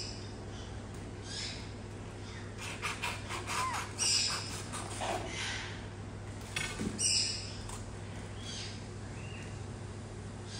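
Baby monkey giving short, high-pitched squeaky calls, repeated every second or two, over a steady low hum. A quick patter of clicks comes about three seconds in.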